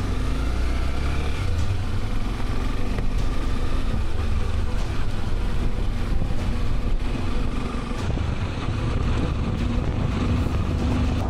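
Honda XRE300's single-cylinder engine running at low revs on a slow ride over a wet, rocky gravel track, its note rising and falling a little. Scattered clicks and knocks come from the stones under the tyres.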